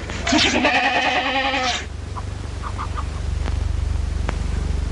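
A farm animal bleating once, a wavering call lasting about a second and a half, followed by a low steady rumble.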